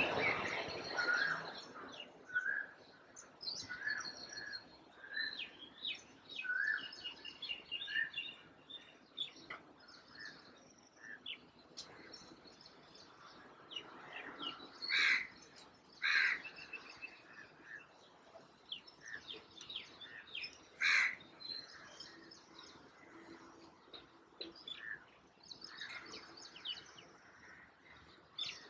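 House sparrows chirping in short, repeated calls, with a few louder calls near the middle.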